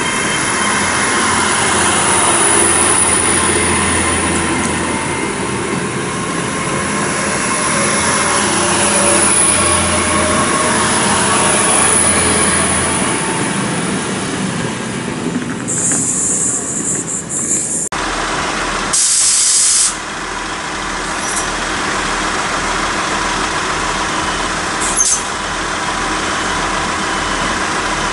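An LNER Hitachi Azuma bi-mode express train runs past along the platform with a steady rumble and wheel noise, fading as it draws away. After a sudden cut about two-thirds of the way in, a steadier hum carries on, with a short hiss soon after.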